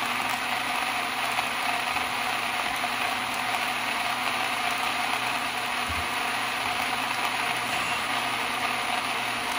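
Portable battery-powered single-serve blender running steadily, its blade churning frozen strawberries and oats in water.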